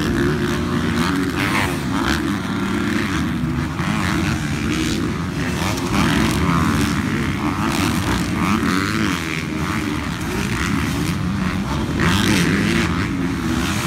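Several motocross dirt bike engines revving on the track, their pitch rising and falling as they ride and take the jumps.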